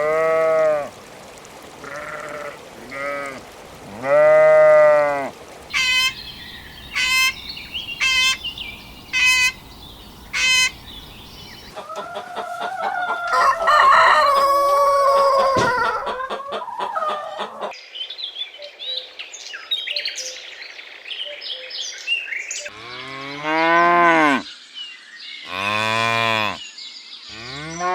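Goats and sheep bleating in separate calls, some long and wavering. In the middle comes a run of short, higher calls about a second apart, then a few seconds of many calls overlapping.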